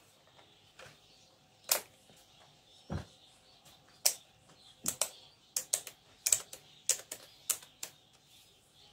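Plastic packaging clicking and crackling in short sharp snaps as it is worked at to get a new planner open, sparse at first and coming faster in the second half.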